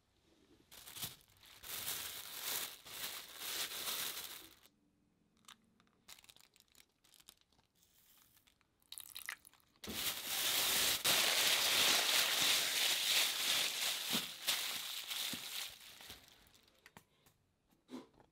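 Thin plastic bag crinkling and rustling as chicken thigh pieces are dropped into it and the bag is handled, in two long stretches with a quieter pause of small clicks between; the second stretch is the louder.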